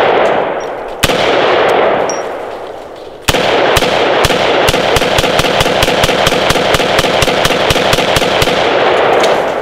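Standard Manufacturing Model A AR-15 firing 5.56 rounds: a single shot about a second in, then from about three seconds a rapid string of semi-automatic shots, roughly four a second, running until near the end. Each shot trails a long echo. The rifle cycles every round without a hiccup and empties the magazine.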